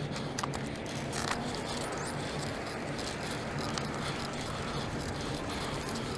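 Bicycle on the move: a steady rushing noise with scattered light clicks and rattles.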